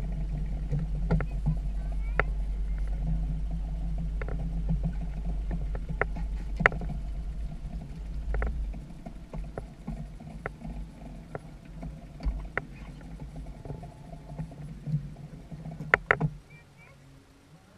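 Small outboard motor running steadily at low speed, a low hum that weakens in the second half and stops shortly before the end. Scattered sharp clicks and knocks sound over it, with a small cluster just before the hum stops.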